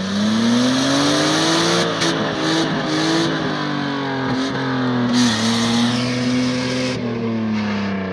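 Nissan RB25 straight-six engine revved hard and held at high revs, the pitch climbing over the first two seconds and easing off near the end, under a loud rushing hiss of wheelspin.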